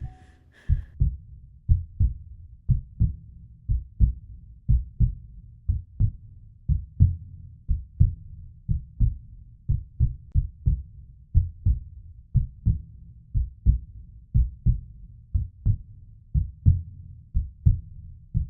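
Heartbeat sound effect: a steady run of low, double thumps repeating evenly throughout.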